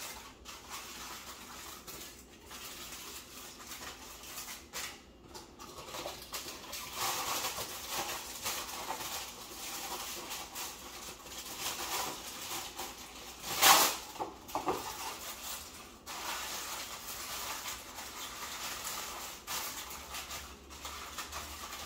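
Kitchen handling noises: rustling and light clatter of a baking pan and its contents, with one louder clank about 14 seconds in.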